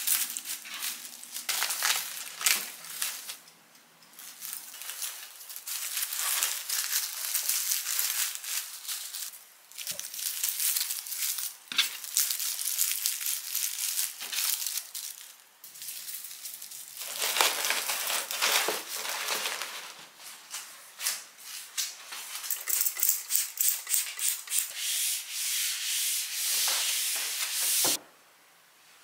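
Honeycomb kraft-paper cushioning rustling and crinkling as it is spread out and wrapped around onions, in irregular bursts with brief pauses. The rustling cuts off suddenly about a second before the end.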